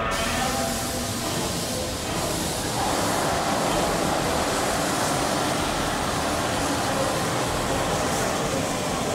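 Steady outdoor city street noise: a constant wash of traffic and street bustle.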